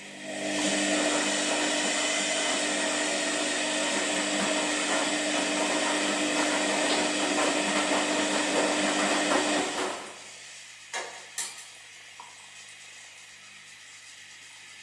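Washing machine running a wash cycle: the motor and turning drum give a steady hum with swishing for about ten seconds, then stop abruptly, leaving a low hum with two sharp clicks, the pause before the drum turns again.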